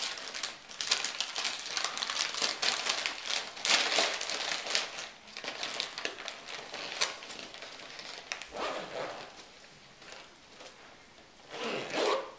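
Crinkly plastic snack packets, among them a potato chip bag, rustling and crackling as they are stuffed into a soft lunchbox. The rustling thins out over the last few seconds.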